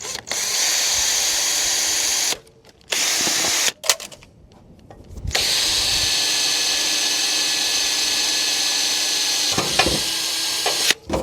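Power drill running in three bursts, a short one, a very brief one, then one of about five seconds, drilling a hole in the vehicle bodywork.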